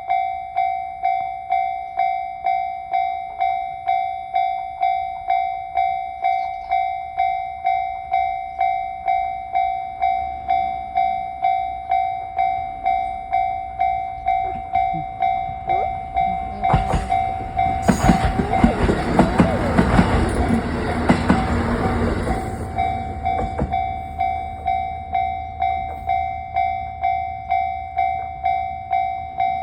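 Japanese level-crossing warning bell ringing its steady "kan-kan", about one and a half strikes a second. A train passes from about 17 to 23 seconds in, its wheels clattering over the rail joints and nearly drowning the bell.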